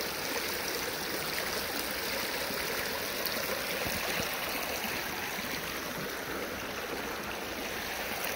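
Shallow, rocky creek babbling over stones in a steady, even rush of running water.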